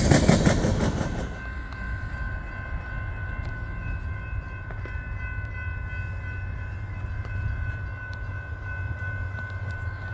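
A train passing, its loud rush and rapid wheel clacking dying away in the first second or so. After that a steady low rumble remains, with a faint, steady high whine over it.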